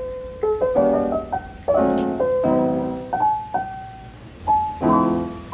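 Background piano music: chords struck every second or so, with single melody notes between them that ring and fade.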